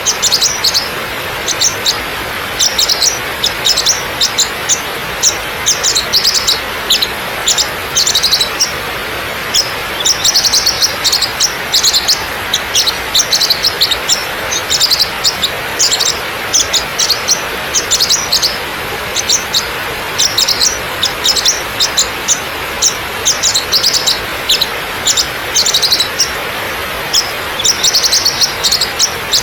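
Waterfall water rushing steadily over rock, with frequent short, high bird chirps sounding over it.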